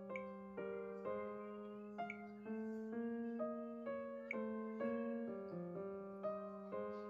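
Background music on a piano-like keyboard: a gentle melody with new notes about twice a second over a held low note.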